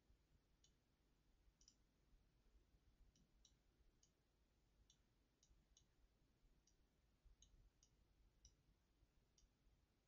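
Faint computer mouse clicks, about a dozen at irregular intervals, over near silence.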